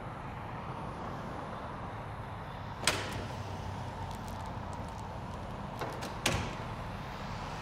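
A glass entrance door clacking sharply as it is pushed open, then a second, louder clack about three seconds later as it swings shut, over a steady low outdoor hum.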